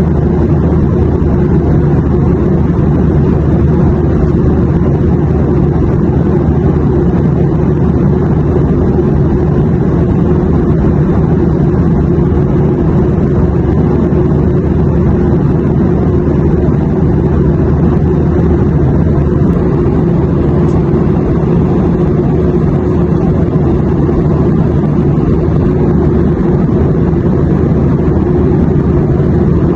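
Airliner cabin noise: a steady, even, low engine drone and rush of air with no change.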